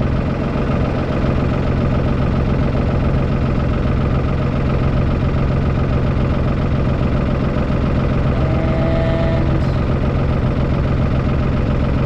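Tractor engine idling steadily, with a brief steady tone about eight and a half seconds in.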